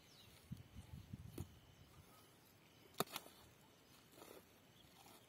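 Near silence, with a few soft thumps and one sharp click about three seconds in, as dead snakehead fish are shifted by hand on bare earth.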